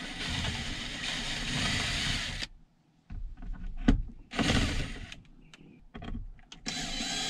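Power drill driving stainless steel screws overhead: one long run of the motor, then two short ones, with a sharp knock in between.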